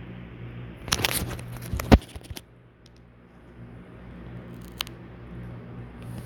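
Crackling, crinkling handling noise: a burst of rustles and clicks about a second in that ends in one sharp, loud click, then a single click a few seconds later, over a steady low hum.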